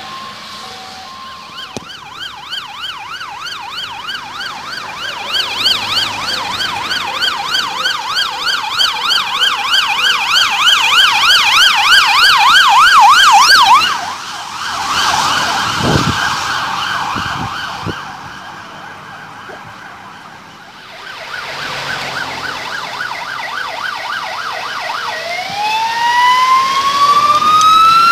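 Emergency vehicle sirens passing at speed. An ambulance's fast warbling siren grows steadily louder, then drops away suddenly about 14 seconds in as the ambulance rushes past. A fainter fast siren follows, and near the end a slow wailing siren rises in pitch as the next vehicle approaches.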